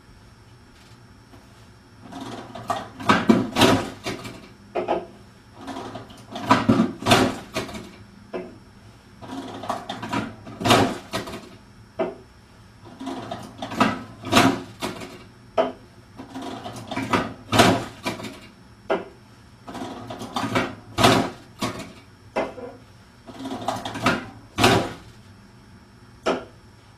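Repeated rounds of clatter and knocks, one about every three and a half seconds, each with a sharp loud knock: beer cans being handled at a cooler and set down one at a time on a wooden table.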